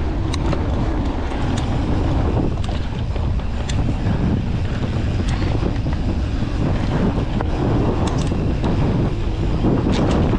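Wind buffeting a GoPro Hero 9's microphone while riding a mountain bike down a dirt trail, over a steady rumble from the tyres. Scattered sharp clicks and rattles come from the bike over bumps.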